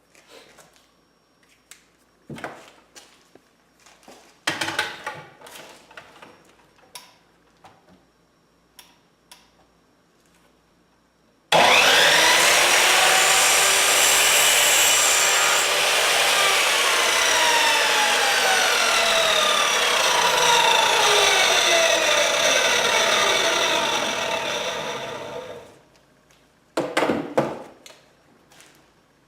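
Power tool cutting through 1/2-inch PVC pipe: it starts abruptly about twelve seconds in, runs steadily with pitches sliding slowly downward, and winds down about fourteen seconds later. Before it come scattered clicks and knocks of pipe being handled, and a brief clatter follows near the end.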